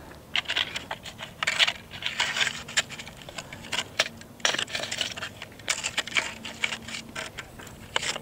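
Irregular clicking, light clinking and scraping close to the microphone: handling noise from gear being worked by hand.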